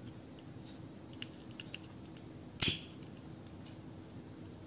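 A disposable lighter struck once about halfway through, a single sharp click with a short tail, among faint small ticks of hands handling the cord; the flame is lit to melt the cut cord ends.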